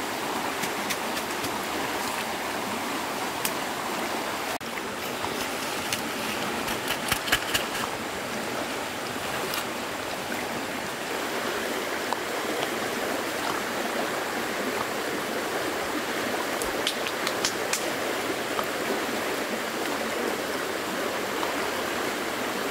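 Running water of a stream, a steady rushing, with a few clusters of short sharp clicks about six to eight seconds in and again around seventeen seconds.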